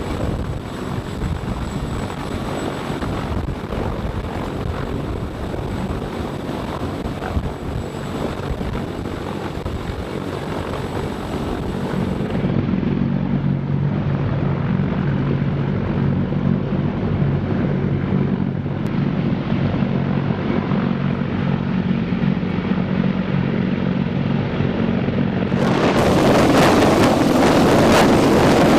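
Heavy-lift military helicopter running, heard across several cut-together shots. First comes a steady rush of rotor and engine noise. In the middle there is a steady hum of low tones, and near the end a louder, rougher rush of rotor noise.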